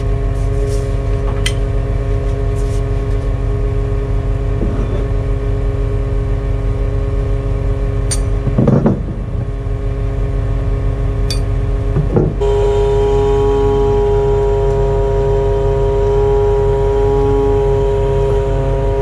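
Truck engine and hydraulic pump running steadily at raised revs to drive the loader crane, a constant pitched hum. There are a few sharp metallic clicks and a brief louder surge partway through. About twelve seconds in, the note steps up and grows louder as the crane is worked.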